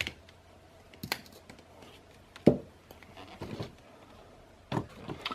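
Victorinox Deluxe Tinker Swiss Army knife being handled: several sharp clicks from its folding tools, the loudest about two and a half seconds in, with soft handling noise between.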